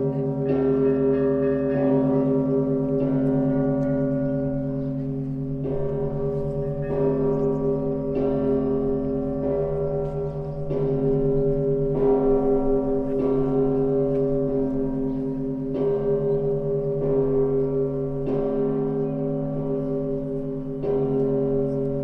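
Russian Orthodox church bells of the Danilov Monastery ringing a festal peal: several bells of different pitches struck together in a steady rhythm, a little under once a second, each strike ringing on into the next.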